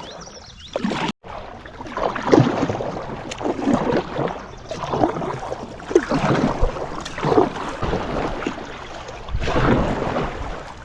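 Kayak paddle strokes splashing in lake water, the blades dipping in roughly once a second over a steady wash of water noise.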